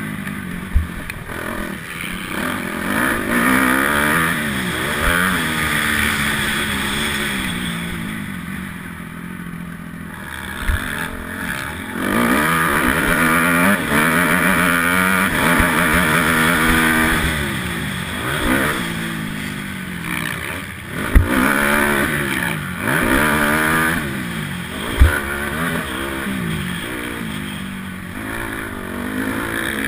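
Honda 250R motocross bike's engine revving hard and falling back over and over as it is ridden around a dirt track, heard from the rider's helmet camera. A few sharp knocks cut through about a second in, about eleven seconds in, and twice later on.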